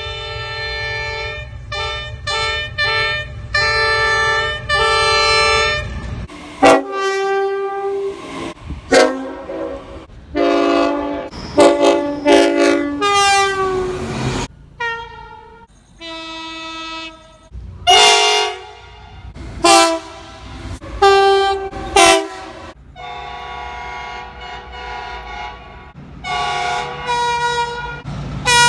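Train horns sounding a series of short and long blasts, each a chord of several notes, with the sound changing character twice as one horn gives way to another. A low locomotive engine rumble runs under the first few seconds, and some blasts slide in pitch.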